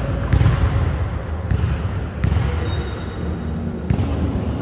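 Basketball bouncing on a hardwood gym floor: a few irregular single thuds, not a steady dribble. A couple of short high squeaks come about a second in.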